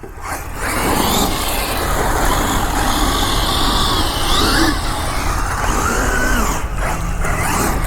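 Losi 6IX 1/6-scale electric RC car being driven, its brushless motor whining up and down in pitch over steady tyre and surface noise; the new tyres are not getting grip in the cold.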